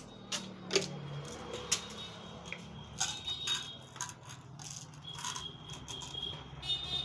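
Irregular clicks, taps and rattles of small objects being handled, over a steady low hum.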